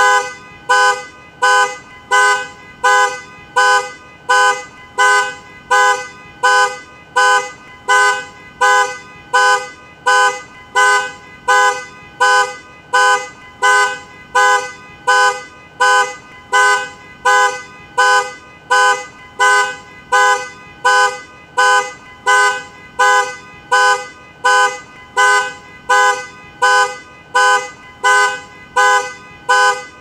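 Car alarm sounding the car's two-tone horn in short, evenly spaced honks, about one a second, with no let-up.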